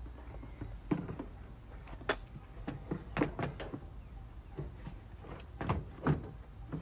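Irregular sharp clicks and knocks from a headlight assembly being handled, with a few louder knocks about two, three and six seconds in.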